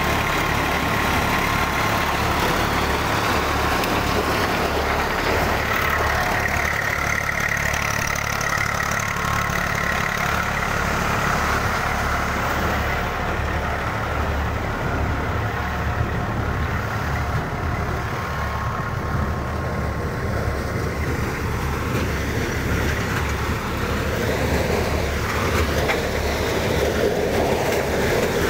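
Tractor engine running at a steady speed, driving a maize sheller whose steady mechanical noise runs over the engine's low, even drone.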